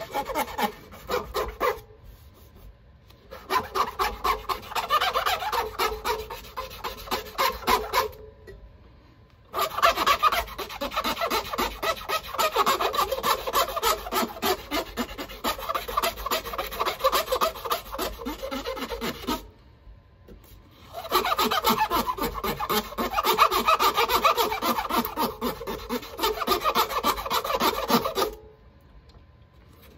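A deer antler pen blank being sanded or scraped on a pen-turning lathe: a fast, scratchy rasping rub in four long passes with short pauses between them.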